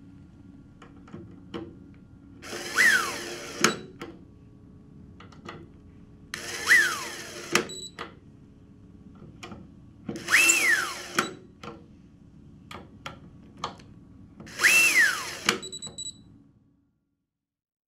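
Nitto Kohki Delvo brushless electric screwdriver driving four machine screws into a metal block, one after another. In each run the motor whine climbs and then drops as the screw seats, ending in a sharp click as the driver stops at the set torque. The last two runs whine higher than the first two: after two screws the driver has switched automatically to another speed channel.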